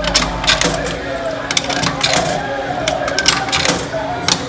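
500-won coins fed one after another into the coin slot of a laundromat sneaker dryer, each clinking as it drops through the coin mechanism, about every half second.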